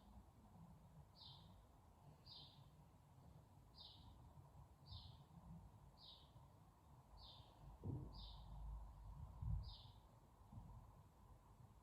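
A bird repeating one short, high chirp about once a second, eight times, stopping a couple of seconds before the end. Two low thuds come about two-thirds of the way through.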